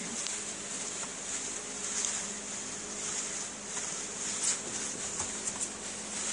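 A steady low hum under an even hiss, with a few faint scattered ticks.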